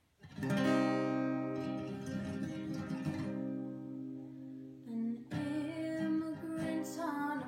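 Acoustic guitar strummed: a chord rings out about half a second in and fades, and another is struck about five seconds in, with a singing voice coming in near the end.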